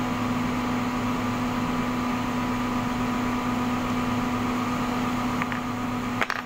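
Electric motor of a fabric cutting machine running steadily on test after a repair to its sharpener gear, with a short click near the end.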